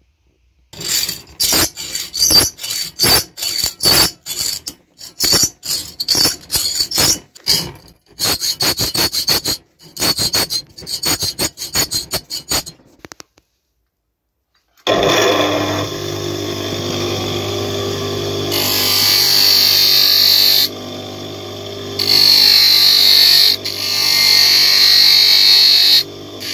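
Quick, irregular scraping strokes on a steel knife blade held in a vise, stopping about halfway through. After a short pause a bench grinder is switched on and runs with a steady hum. The blade is then pressed to the spinning wheel three times, each a loud, high-pitched grinding.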